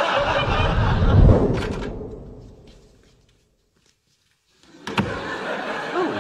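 Sitcom studio audience laughing, dying away to a moment of silence about three seconds in. About five seconds in, an apartment door shuts with a sharp click.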